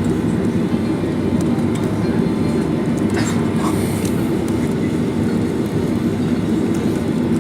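Steady low rumble of cabin noise inside a jet airliner on the ground after landing.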